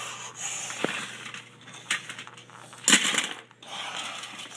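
Toy train engine and trucks clattering as they are pushed off the track and tumble into a crash. There are a couple of single knocks first, then one loud clatter about three seconds in.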